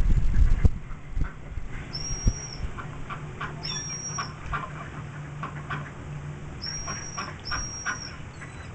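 Ducks quacking and short, high, held whistled bird calls played through a television's speakers, over a steady low hum. A few low thumps sound in the first second.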